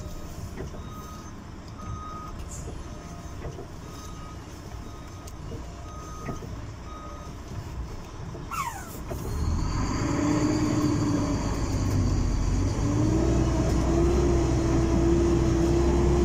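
Heard from inside a vehicle's cab: a short electronic beep about once a second over a quietly running engine. A short falling whistle follows about two-thirds of the way in, then the engine gets much louder and its note slowly rises.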